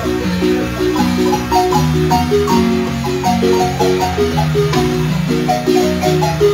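Marimba music: several mallet parts played together, a low bass line moving under quicker melody notes higher up, steady and continuous.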